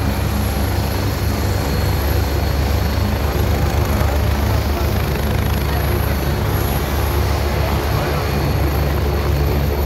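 Helicopter running close by at a steady pitch: a low rotor drone under a thin, high turbine whine.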